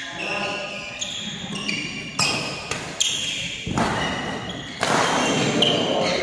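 Badminton rally: rackets striking the shuttlecock about four times, each hit under a second apart, ringing with the echo of a large indoor hall.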